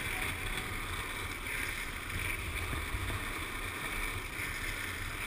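Steady wind rush on the microphone over the roll of freebord wheels on asphalt during a fast downhill run, with a hiss that swells and fades every second or so.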